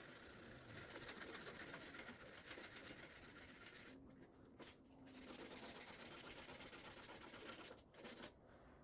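800-grit wet sandpaper rubbed by hand over a VW Golf Mk1 fender's paint: a faint, steady scratchy hiss with brief breaks about halfway through and near the end. This is flatting the panel smooth before primer.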